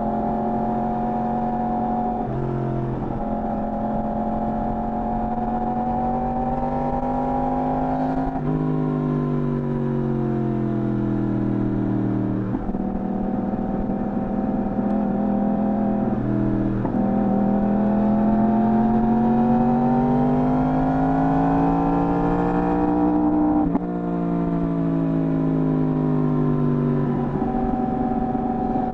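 Yamaha R1 sportbike's inline-four engine through its stock exhaust, pulling and easing off as the pitch climbs and falls. Its pitch jumps suddenly several times as gears change.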